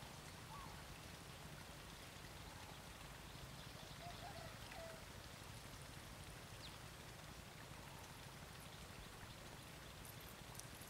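Near silence: faint steady outdoor background noise, with a brief faint chirp about four seconds in.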